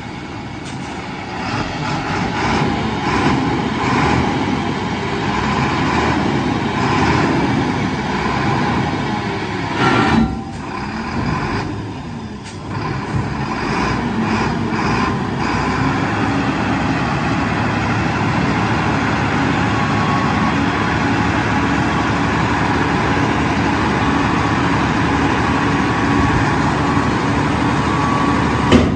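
Sinotruk HOWO 8x4 dump truck's diesel engine running, with a short hiss of air about ten seconds in. Then the engine settles into a steady, slightly louder run with a whine over it as the hydraulic hoist raises the tipper body.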